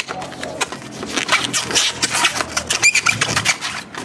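Long latex modelling balloon being handled and twisted, its rubber rubbing and squeaking in quick runs, with one clear high squeak about three seconds in.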